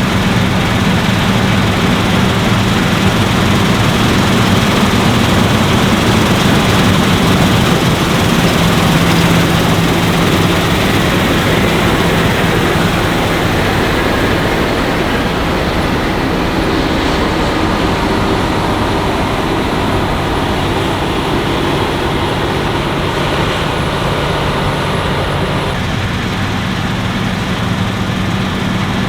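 Claas Lexion 770TT combine harvester running steadily while harvesting: an engine drone under a dense wash of machine noise.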